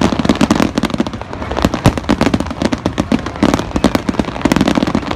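Aerial fireworks shells bursting: a dense, irregular run of bangs and crackles, several reports a second with no pause.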